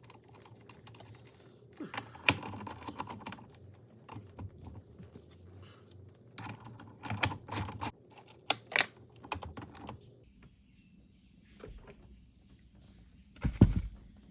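Steering wheel retaining nut being run back down onto the steering column with a ratchet and socket: bursts of quick metallic ratchet clicking, with a loud clunk near the end.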